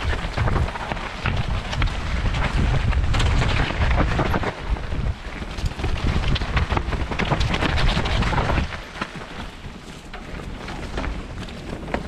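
Wind buffeting the action-camera microphone at riding speed, over the crunch and clatter of mountain-bike tyres and bike parts on a rocky singletrack descent. It eases for a couple of seconds near the end.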